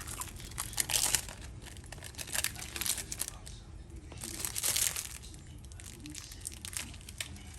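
Plastic wrapping crinkling and tearing in irregular bursts, twice in stronger spells, as sliced cheese is unwrapped.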